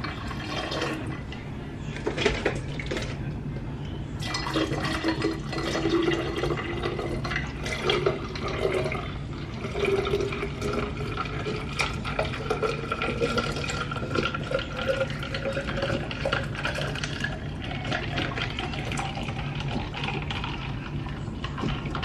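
Orange juice poured from a carton in a steady stream into a glass carafe over ice, the filling note rising slowly in pitch as the carafe fills up.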